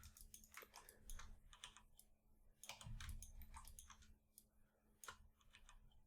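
Faint, irregular clicks of a computer mouse and keyboard being worked, over a low steady hum.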